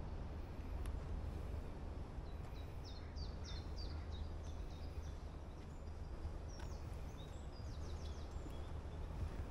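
A songbird sings two phrases of quick, repeated high notes, each note sliding downward, over a steady low rumble.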